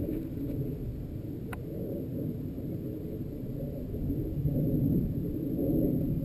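Wind buffeting an action camera's microphone: a low, uneven rumble that gusts a little stronger near the end. A single sharp click about a second and a half in.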